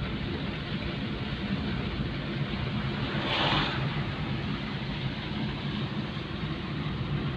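Steady vehicle running noise with a low hum, and a brief rush of hiss about three and a half seconds in.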